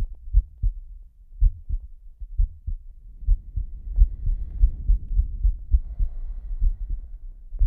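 Slow heartbeat: low, muffled double thumps (lub-dub) repeating at a steady rhythm of roughly one pair a second. From about three seconds in, a soft heavy breath sound swells under the beats and fades again near the end.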